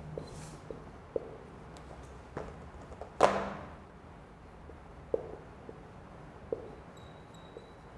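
Marker writing on a whiteboard: a string of light taps and strokes spaced irregularly, with one louder, longer noise about three seconds in and a faint high squeak near the end.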